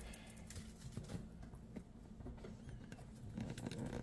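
Faint handling noise from a small cardboard card-game box being opened and its contents slid out: soft scattered taps, clicks and light rustles.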